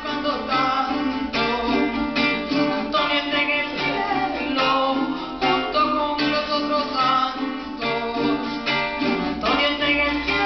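Venezuelan folk song: a singer's voice over a briskly strummed acoustic plucked-string instrument, steady and rhythmic throughout.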